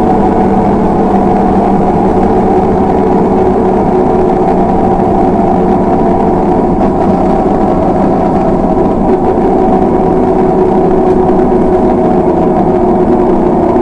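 LiAZ 6213.22 articulated diesel city bus running steadily, heard from inside the cabin: a steady engine drone with a few even tones over a low rumble.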